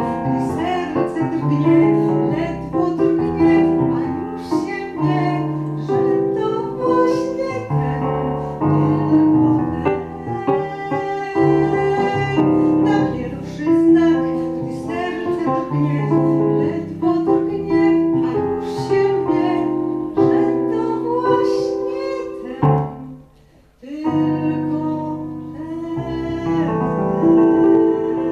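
Woman singing an old popular song into a microphone over piano accompaniment, with a brief break in the music about three-quarters of the way through.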